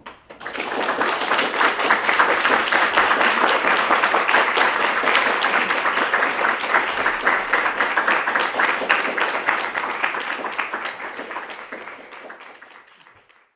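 Audience applauding: many hands clapping, building within the first second and fading away near the end.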